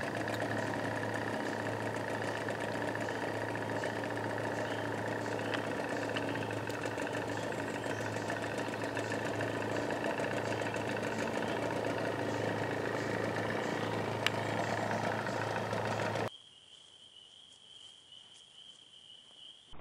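A steady low motor-like hum with faint chirping above it. It cuts off suddenly about sixteen seconds in, leaving a quiet stretch with a thin steady high tone.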